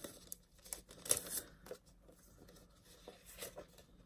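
Faint rustling and crinkling of paper stationery packaging being handled and opened, in short bursts, the clearest about a second in and again near three and a half seconds.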